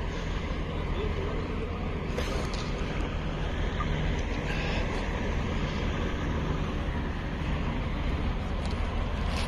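Steady low rumble of idling vehicles, with a faint click about two seconds in.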